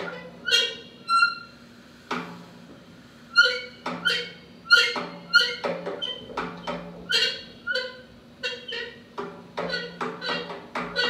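Drum kit played in a free solo improvisation: irregular single strikes, each ringing on with a few clear pitched overtones over a low drum tone. Sparse in the first couple of seconds, then the hits come closer together.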